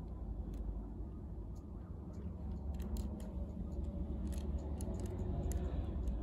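Handling noise from a Majorette die-cast miniature car being turned in the hand: scattered light clicks, more of them in the second half, over a low steady rumble.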